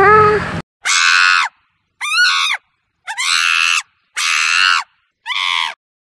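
Monkey screeching: five short, high-pitched screeches, each about half a second long, separated by dead silence.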